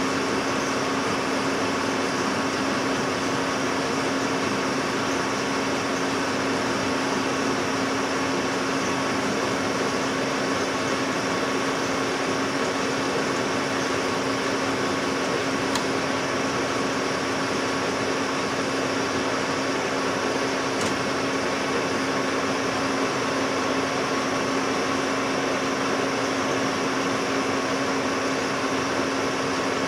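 Metal lathe running and taking a roughing cut of 50 thousandths a side on a jack screw: a steady machine drone with a constant hum.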